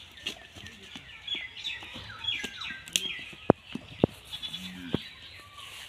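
Goats bleating, over many short high bird chirps, with a few sharp knocks about halfway through.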